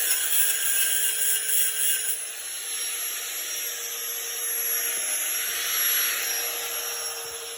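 Power tool cutting through the steel frame tubing of a Suzuki Intruder motorcycle, its motor running at a steady high pitch over the hiss of the cut.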